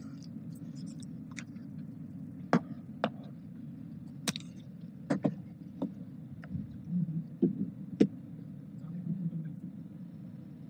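A steady low room hum with about a dozen sharp clicks and taps scattered over the first eight seconds, the sound of small handling noises such as a laptop being worked at a lectern.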